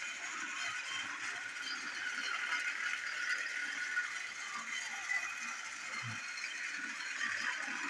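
Knockoff TrackMaster Douglas battery toy train running on plastic track, its small geared motor whirring and rattling steadily.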